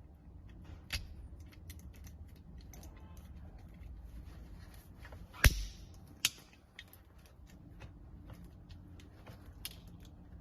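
Hand crimping tool pressing a Cat6 RJ45 plug: scattered small clicks, with one sharp loud snap about five and a half seconds in and a smaller one just after, as the crimp seats the plug's pins.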